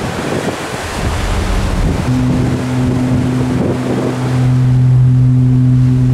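Wind buffeting the microphone and the rush of sea water on a ferry's open deck. About two seconds in, a long, steady, low blast of the ship's horn begins and holds, louder than the wind.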